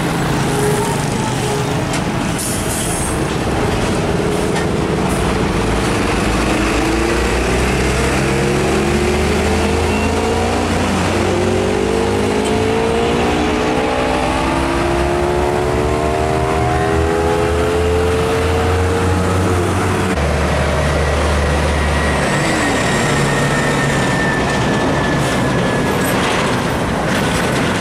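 Diesel engines of heavy tractor-trailer trucks passing close by, their engine notes rising slowly as they pull away and gain speed, over general road traffic. The sound changes abruptly about two-thirds of the way through to a steadier low engine hum.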